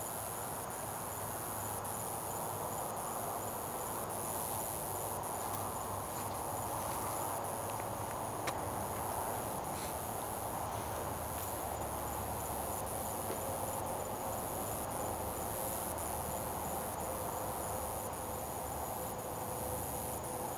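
Crickets chirping in a steady, continuous high-pitched chorus over a low even background hiss.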